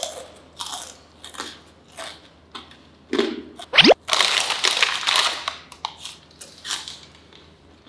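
Crunchy snack being chewed close to the microphone, in crackly bites, with a plastic snack bag crinkling as a hand reaches into it about four seconds in. Just before that comes a quick rising whistle.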